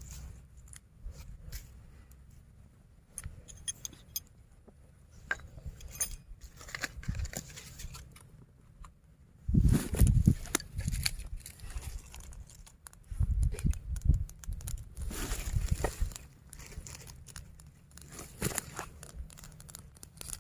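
Close-up handling noises: scattered clicks and scrapes, with clusters of dull thumps about halfway through and again a few seconds later.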